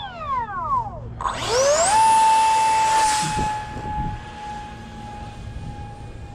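Electric ducted fan of a 3D-printed RC F-16 jet: its whine slides down, then about a second in climbs sharply to a high, steady full-throttle whine. The whine holds loudest for about a second, then continues steady and fading as the plane flies off after launch.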